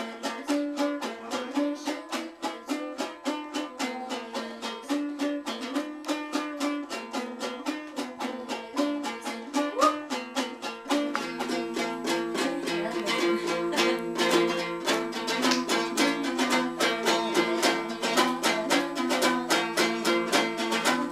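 Komuz, the Kyrgyz three-string fretless lute, strummed in a fast, steady rhythm. About halfway through, a lower note joins and the playing gets fuller.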